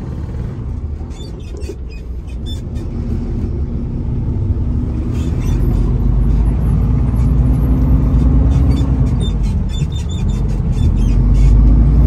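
Diesel engine of a semi-truck tractor unit, heard from inside the cab as the truck drives off and picks up speed, getting louder. The engine note climbs, drops briefly about nine to ten seconds in, then climbs again, with light clicks and rattles over it.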